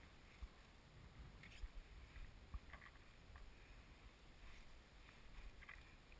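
Near silence: a small boat gliding out through reeds, with faint rustling and a few soft knocks spread through the quiet.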